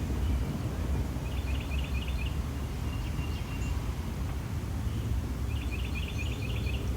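A songbird singing two short phrases of quick high notes, about a second in and again near the end, over a steady low outdoor rumble.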